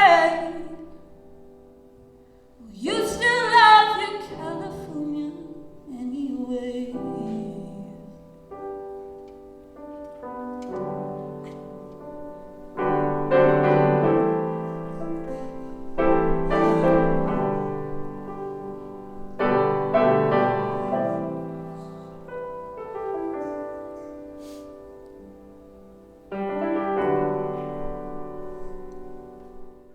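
Acoustic piano with a female singer: a last sung phrase a few seconds in, then solo piano playing a handful of slow chords, each left to ring and fade away as the song closes.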